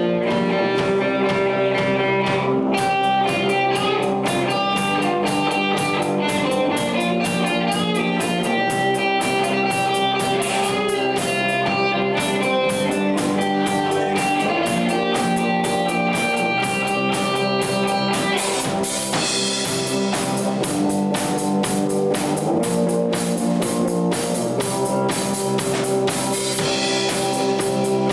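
Live rock band playing electric guitars, bass and drum kit. The guitars start alone, the drums come in about three seconds in, and the cymbals grow louder later on.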